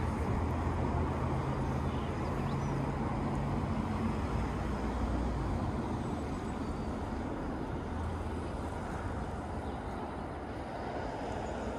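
Road traffic: a steady rumble with a low engine hum from a passing motor vehicle, strongest over the first few seconds.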